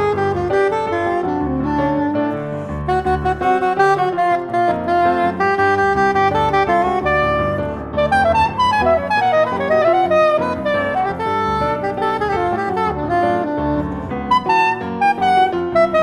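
Soprano saxophone playing an improvised jazz solo over piano accompaniment, in a flowing line of quick notes that turns into faster runs about halfway through.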